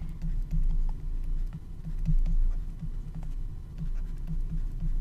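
Stylus tapping and scratching on a drawing tablet as words are hand-written, a run of small soft taps over a steady low hum.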